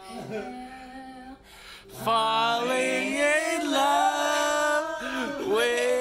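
A woman singing unaccompanied, first softly, then from about two seconds in belting loud, long held notes that slide in pitch.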